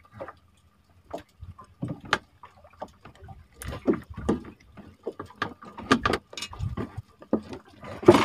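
Irregular clicks, knocks and rustles of a freshly caught fish being unhooked by hand against the wooden boat. The knocks come more thickly and heavily in the middle and again near the end.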